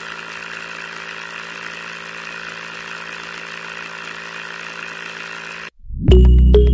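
Small brushed DC hobby motor running steadily, spinning a plastic-straw drill bit, with a constant whir. It cuts off abruptly near the end, and background music starts.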